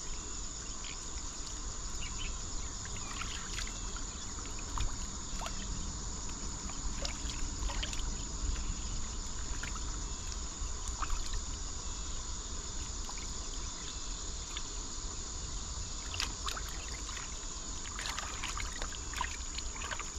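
Swollen, fast-flowing river water running steadily, with scattered short splashes and knocks as a shark is rinsed and cut at the water's edge. A steady high insect drone runs underneath.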